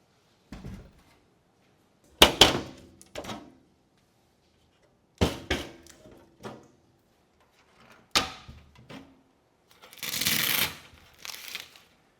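Hard parts being handled and set down: three sharp knocks about three seconds apart, each ringing briefly and followed by lighter clatters, then a short scraping rustle near the end.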